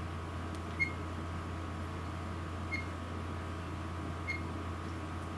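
Three short high-pitched button beeps from an AKASO Brave 7 LE action camera as its buttons are pressed to change modes, over a steady low hum.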